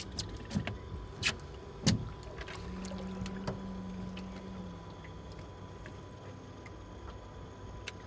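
Several sharp knocks and clunks against an aluminium fishing boat as a big flathead catfish is handled over the side for release, the loudest about two seconds in. A low hum follows for about two seconds over a faint steady background.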